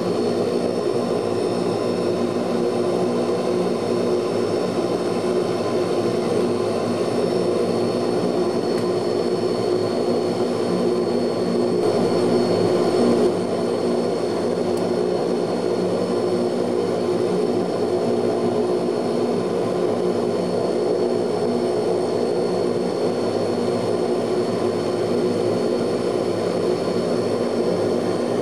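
Ilyushin Il-18's Ivchenko AI-20 turboprop engines running, heard from inside the cabin: a steady drone with a whine of several steady tones. It swells briefly about twelve seconds in, then drops back.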